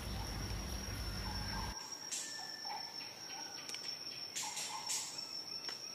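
Bush ambience: insects trilling in one steady high-pitched note, with short low chirps recurring irregularly throughout.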